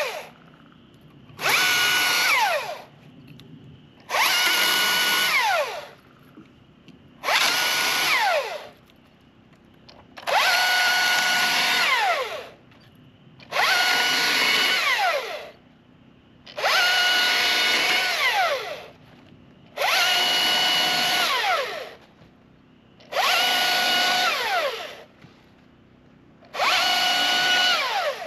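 Husqvarna T540i XP battery top-handle chainsaw making a series of short marking cuts into a log. There are about nine bursts of a couple of seconds each, roughly every three seconds. Each starts sharply and ends in a falling whine as the electric motor and chain wind down.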